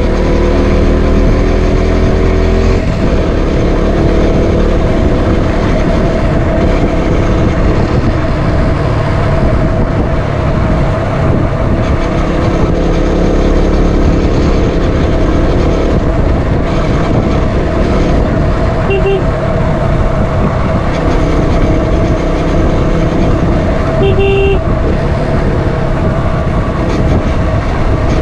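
A motorcycle on the move: steady engine and road noise throughout, with two short horn beeps, about two-thirds of the way in and again near the end.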